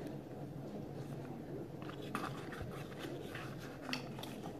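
Faint cardboard handling: a small perfume box being opened and its bottle pulled out, with a few soft scrapes and taps about two seconds in and again near the end.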